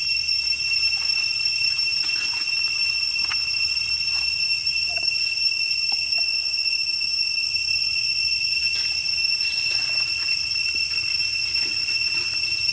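Steady high-pitched insect drone, such as jungle cicadas: one unbroken tone with overtones. Faint scattered clicks and rustles lie beneath it.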